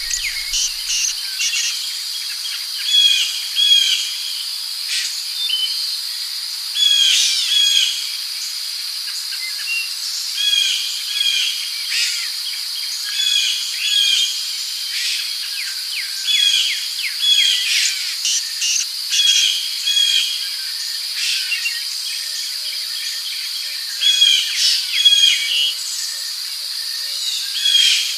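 Forest ambience: a steady high-pitched insect drone, with songbirds chirping in short, repeated phrases every second or two.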